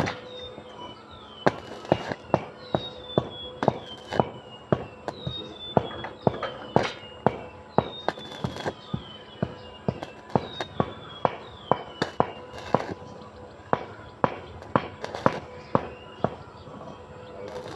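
Hammer striking metal: many sharp, irregular blows, about two or three a second.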